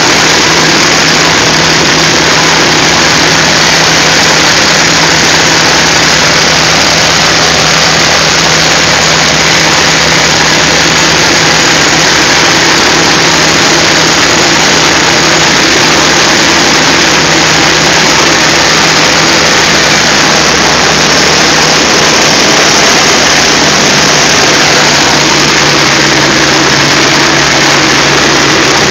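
North American T-28C Trojan's Wright R-1820 radial engine and propeller droning steadily in flight, heard loud from inside the cockpit.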